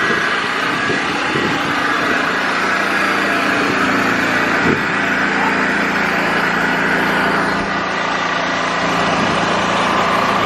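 An engine idling steadily at drag-racing staging, with no revving. A short knock sounds about halfway through.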